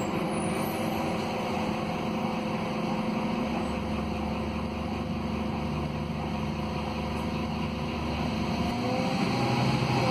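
Scania DC09 280 hp Euro 6 diesel engine of a Scania K280UB city bus, heard from inside the passenger cabin, running steadily. Near the end it grows louder with a rising whine.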